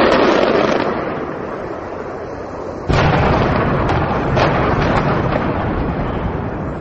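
Blasts from demolition charges and fireworks on a high-rise building. A heavy boom at the start fades over about a second, then about three seconds in comes a second boom, followed by several sharp cracks that die away.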